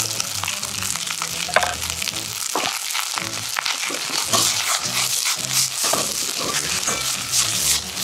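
Fried rice sizzling in a hot frying pan as ingredients go in and it is stir-fried, with a steady hiss and a few short sharp strokes from the stirring.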